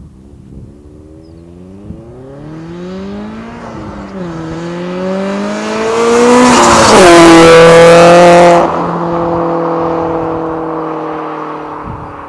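Scion FR-S flat-four engine breathing through an ARK Performance GRiP exhaust with equal-length headers and overpipe, accelerating past: the note climbs, drops at a gear change about four seconds in, rises again and is loudest as the car passes, then fades as it drives away at a steadier pitch.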